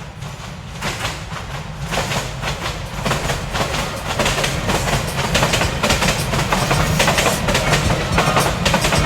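Train running on the rails, wheels clattering over the track with a low rumble, growing louder over the first few seconds and then holding steady.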